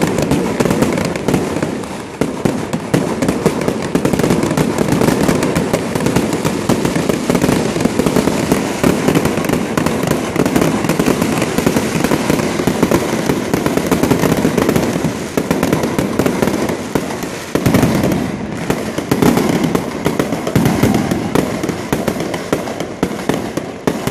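Fireworks display: aerial shells bursting overhead in a dense, continuous barrage of bangs and crackles.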